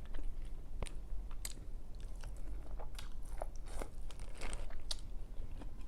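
A person eating seafood boil close to the microphone: chewing and biting with irregular crunching clicks.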